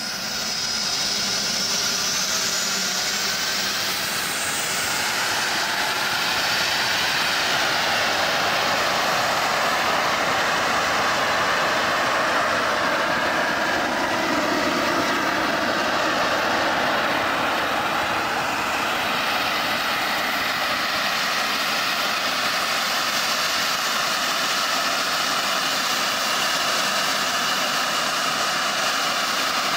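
A small gas-turbine jet engine, the gas producer of a turboshaft go-kart with no power turbine yet fitted, running steadily on a test stand. It makes a loud, even rushing roar with a high whine that rises in pitch in the first few seconds.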